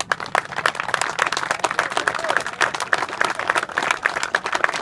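A small group of people clapping by hand, with dense, irregular claps throughout.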